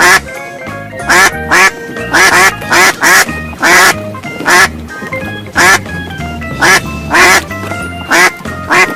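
Duck quacking over and over, in short loud calls about one or two a second, over background keyboard music.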